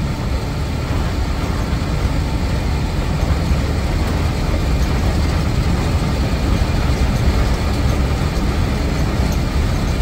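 Blue Bird Wanderlodge motorhome cruising on the highway, heard from inside the cabin: a steady low drone of engine and road noise.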